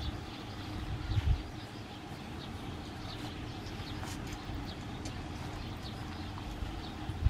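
Outdoor background: a steady low hum with faint, short high chirps recurring every second or so, and a brief low thumping about a second in.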